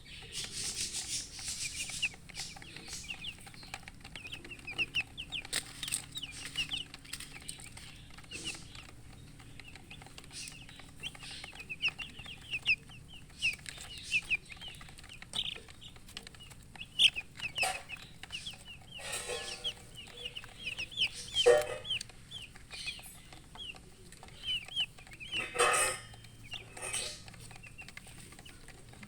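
A group of baby chicks peeping continuously: rapid, high, short downward-sliding chirps, which the uploader puts down to thirst for drinking water. A few brief louder rustling bursts break in around the middle and near the end.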